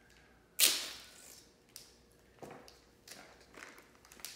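Duct tape ripped off the roll in one loud rip about half a second in, followed by several softer, short sounds of the tape and plastic bag being handled.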